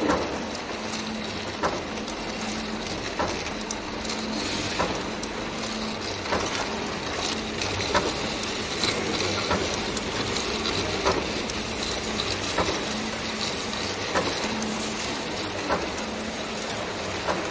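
Automatic bottle labelling machine running: a steady mechanical hum with a sharp click about every second and a half as bottles move along the conveyor.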